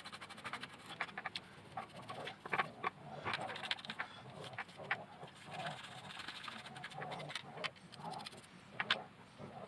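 Parts of a dismantled robot vacuum being cleaned by hand: irregular scratching and scrubbing with scattered clicks and knocks of handled plastic parts.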